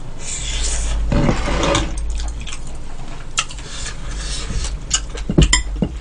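Slurping and eating of beef seaweed soup from a bowl for the first couple of seconds, then scattered clicks of metal chopsticks and a spoon against bowls and dishes, the sharpest near the end.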